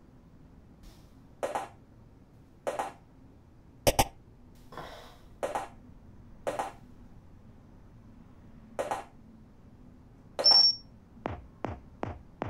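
Electronic menu blips from a music-selection screen: short blips about every one to two seconds as the selection steps through the track list, then a high confirming beep. Right after it an electronic dance track starts, with a pulsing kick drum that drops in pitch on each beat, about two and a half beats a second.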